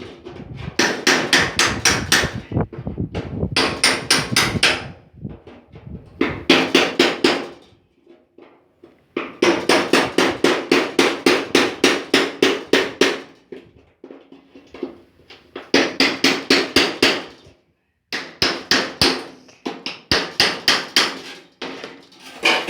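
Hand hammer driving a steel chisel under the folded edge of a 1964 Impala's sheet-steel trunk lid skin: quick runs of metal-on-metal blows, about five or six a second, broken by short pauses, with a ringing note from the panel.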